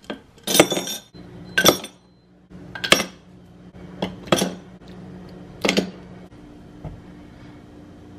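Ice cubes dropped one at a time into a glass tumbler, clinking against the glass and a stainless steel straw: about five sharp clinks with a short ring, a little over a second apart.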